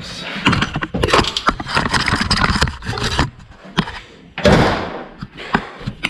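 Workshop items being handled and moved, scraping and rattling with many small knocks for about three seconds, then one loud thump about four and a half seconds in that dies away.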